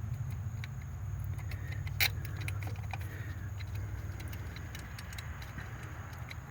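Light metallic clicks and clinks of small parts being handled while a distributor is reassembled, with one sharper click about two seconds in, over a steady low hum.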